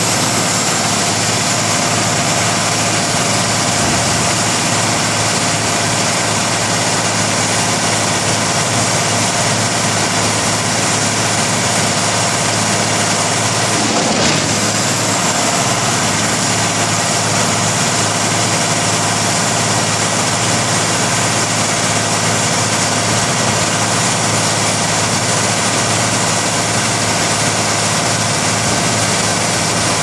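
Morbark 40/36 whole-tree chipper running steadily with nothing being fed: the drone of its large diesel engine and the rush of its spinning chipper drum, holding an even pitch and level throughout.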